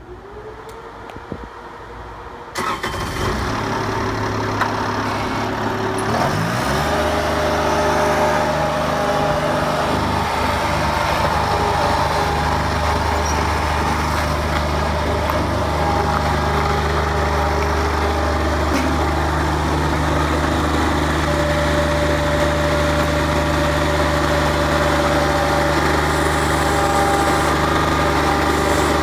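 Bobcat 463 skid-steer loader's diesel engine cranked by the starter and catching about two and a half seconds in. It rises in pitch around six seconds in and then runs steadily at speed.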